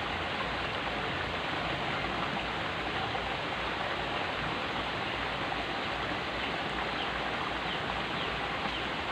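Water running steadily along a small ditch, an even rushing with no break.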